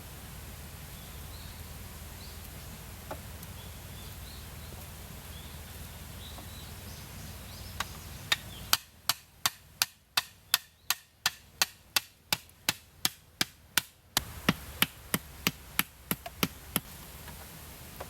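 A run of about two dozen sharp, evenly spaced knocks, roughly three a second, starting about eight seconds in and stopping near the end, over a steady background noise.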